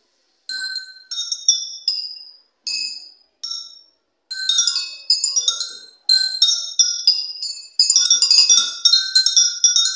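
Glass beakers holding water at different heights struck with a spatula, each strike a short ringing clink at its own pitch. A few single strikes at first, then quicker runs of notes that get denser toward the end.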